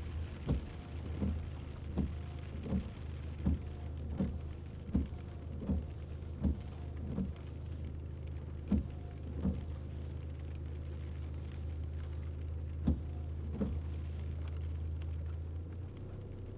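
Car driving in the rain: a steady low drone with short thumps about every 0.7 s that become sparse after about eight seconds. The drone drops away near the end.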